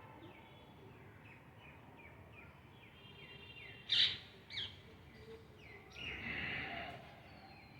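A bird chirping in a steady series of short, falling calls, about two a second. A sharp loud sound cuts in about four seconds in, a smaller one follows just after, and a longer noisy rush comes near the end.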